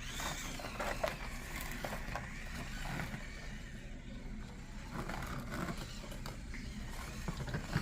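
Scale RC crawler truck driving over the trail: a faint motor whine that rises and falls, with small ticks and scraping from the tires on dirt and rock.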